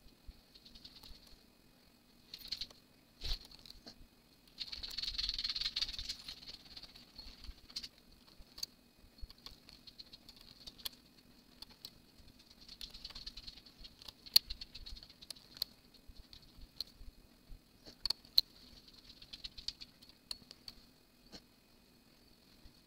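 Scattered light metal clicks and short scratchy rustles as a hand tool and fingers work stitches of knitted fabric onto the metal needles of a Brother 930 knitting machine's needle bed. The loudest rustle comes about five seconds in. A faint steady low hum runs underneath.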